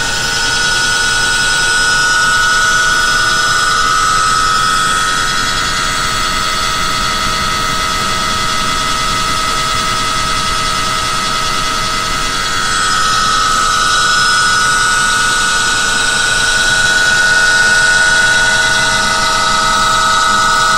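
Electric motor of a Wilo pump running with a loud, steady high-pitched whine, an abnormal noise from the motor.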